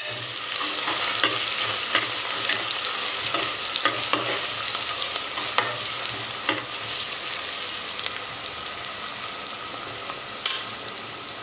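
Chopped onion sizzling in hot oil with whole spices in a metal pot, stirred with a steel spoon that scrapes and clicks against the pot now and then. The onion is being fried until golden brown. The sizzle eases off towards the end.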